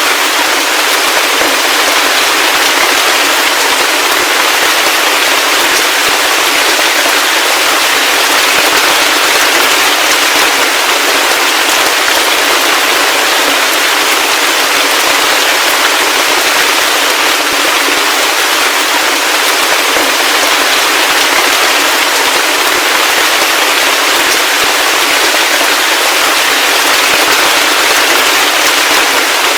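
Heavy rain falling steadily, a dense, even crackle of drops that is thin, with no low rumble.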